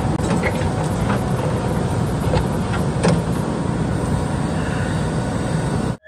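JCB backhoe loader at work, its diesel engine running steadily, with a few scattered knocks as the digger arm works the rocky ground.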